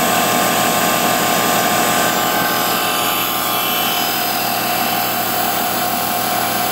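Sun distributor tester's drive motor spinning a 1967 Oldsmobile 4-4-2 distributor at a steady speed, a continuous even whir. The run is at about 2,000 engine RPM for the centrifugal advance check.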